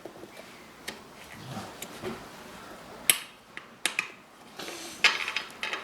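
Scattered sharp metallic clinks and knocks of hand tools on motorcycle wheel parts. The loudest comes about three seconds in, and a quick run of clinks follows near the end.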